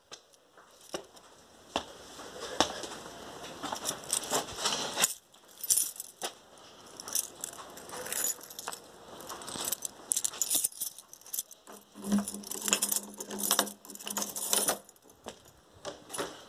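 Handling noise from a phone carried through heavy rain: irregular crackles and taps of raindrops and fabric rubbing on the microphone, with keys jangling. About twelve seconds in, a low steady hum lasts for about two seconds.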